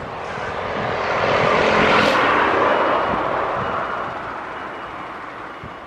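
Airbus A350 airliner's Rolls-Royce Trent XWB jet engines running as it rolls along the runway, with a steady whine over the engine noise. The sound swells to a peak about two seconds in, then fades as the jet passes by.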